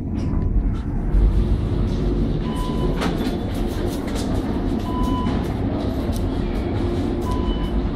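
Old modernized Kone traction elevator car travelling in its shaft, heard from inside the car: a steady low rumble with light rattling clicks. A short electronic beep repeats about every two and a half seconds.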